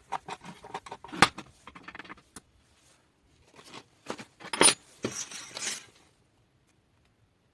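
Handling noise of small hard parts: a run of irregular clicks, knocks and rattles, with a sharp knock about a second in, another louder one past four seconds, and a short scraping rattle just after.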